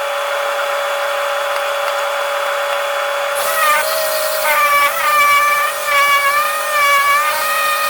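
A small power tool running with a steady whine over a hiss of air. From about three and a half seconds in, a louder hiss joins and a second whining tone wavers up and down in pitch, as if the tool is under varying load.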